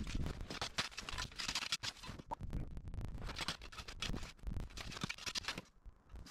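Short-handled shovel digging and scraping snow from under a car's front bumper: a quick, irregular run of scrapes and crunches.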